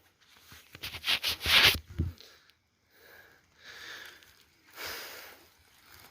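A hiker breathing hard during a steep climb: a few loud, hissing breaths in the first two seconds, then softer ones.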